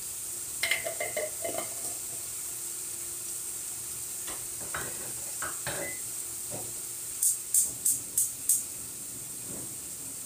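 Onions frying in oil in a large aluminium pot, a steady sizzling hiss, with a wooden spoon knocking and scraping against the pot about a second in and a few times later. Near the end, five quick sharp clicks of a gas stove's igniter as a burner is lit.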